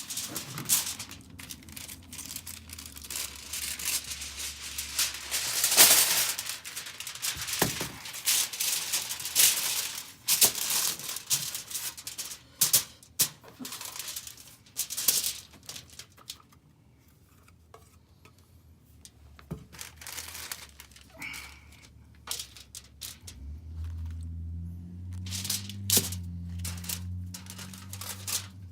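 Close-up eating sounds: crunching and crinkling with many sharp crackles, quieter for a few seconds in the middle, then a low steady hum under it near the end.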